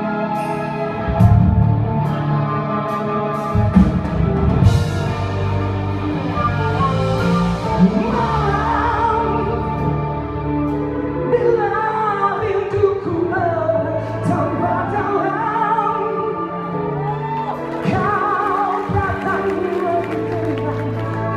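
A song with a singer over an orchestral accompaniment of sustained instruments and occasional percussion strikes; the voice comes in more strongly from about eight seconds in.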